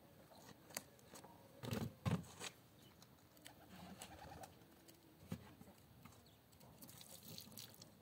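Newly lit wood fire giving a few sharp crackles and knocks among its sticks, the loudest about two seconds in. A bird coos faintly in the middle.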